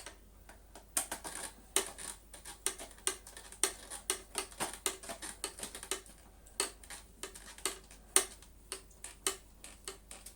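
Parts of a Hoover Celebrity vacuum cleaner being handled and fitted together by hand: a run of irregular light clicks and taps, a few a second.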